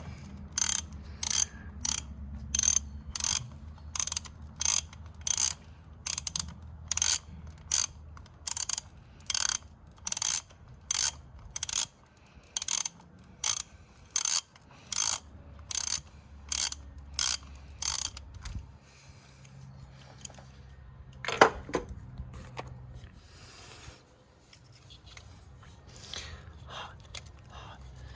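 Socket ratchet wrench clicking in short bursts, about one and a half a second, as it backs out an engine bolt. The clicking stops about 18 seconds in, and a single sharp clink follows a few seconds later.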